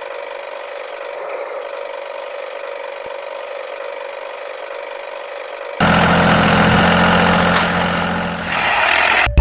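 A steady whirring hum, then about six seconds in a loud engine sound starts abruptly, runs for about three seconds and cuts off suddenly near the end.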